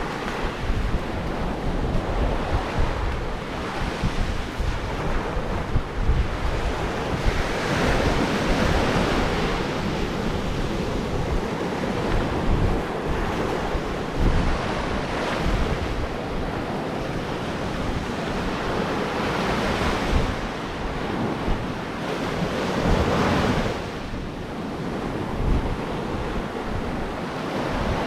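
Ocean surf breaking and washing on the shore, with wind buffeting the microphone. The wash swells several times, most strongly about eight seconds in and again around twenty to twenty-three seconds.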